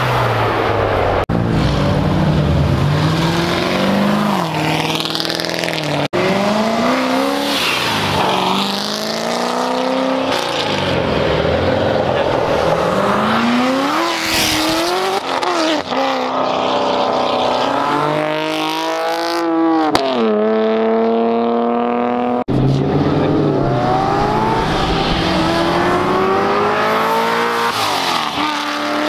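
Performance cars accelerating hard past one after another, among them a Ford Focus RS and a C7 Corvette. Their engines rev up, the pitch climbing and dropping with each shift, in a string of short cuts.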